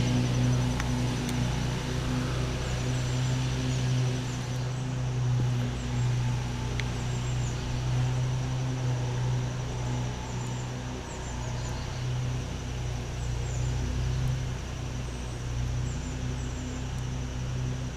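Small engine of a grass-cutting mower running steadily, a low drone that swells and eases slightly. Faint high chirps and a thin steady high tone sit above it.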